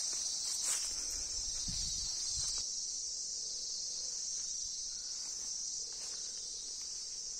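Steady, high-pitched chorus of insects chirring in the orchard grass and trees. A few faint thuds and rustles in the first couple of seconds, as of footsteps through grass.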